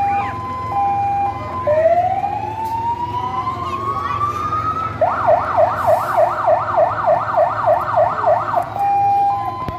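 Fire engine siren cycling through its modes. It starts on a two-tone hi-lo, moves to a slow rising wail, then to a fast yelp at about three sweeps a second, and returns to the two-tone near the end.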